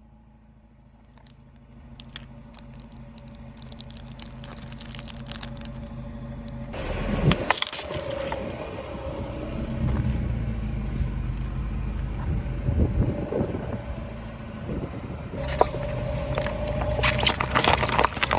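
A car engine running at low speed, with its hum growing louder as the car rolls closer. Crackling and crunching start about seven seconds in, with a sharp crack near the end, as the tyres roll over and crush objects.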